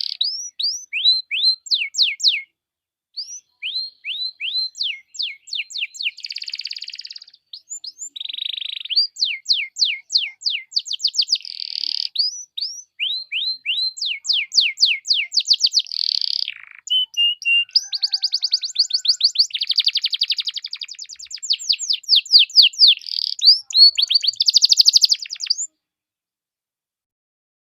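Domestic canary singing a long, fast song: rapid trills of repeated downward-sweeping whistled notes alternating with buzzy rolls, breaking off about two seconds before the end.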